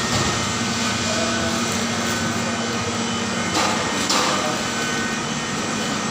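Steady, loud machinery hum with a few faint steady tones, typical of refrigeration fans and compressors, broken by two sharp knocks a little after halfway.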